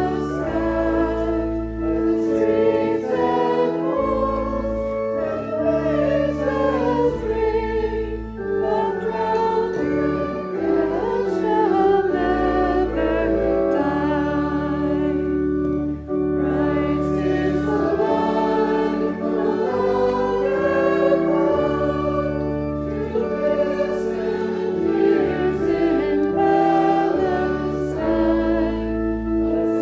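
A church congregation singing a hymn together, over sustained accompanying chords.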